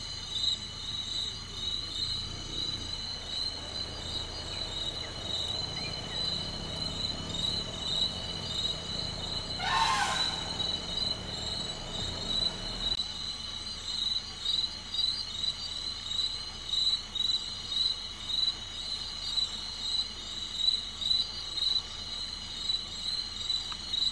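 Crickets and other night insects chirping steadily in pulsing trills. A low hum runs underneath and cuts off suddenly about halfway through, and a brief high squeal falls in pitch near the middle.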